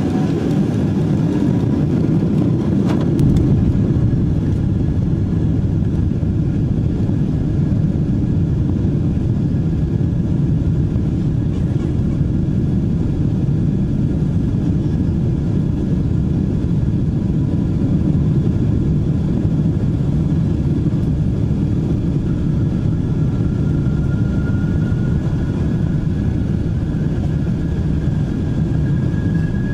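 Cabin noise inside a Boeing 777-200 taxiing: a steady low rumble from the engines and airframe, with a faint high engine whine that rises slightly in the last several seconds.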